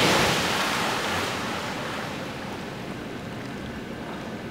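Water splashing in a swimming pool as people thrash their arms, dying away over the first two seconds into a quieter steady wash of moving water.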